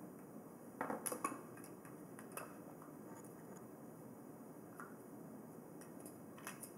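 Small plastic makeup containers being handled: a quick cluster of light clicks and taps about a second in, another click a little later, then a few faint ticks.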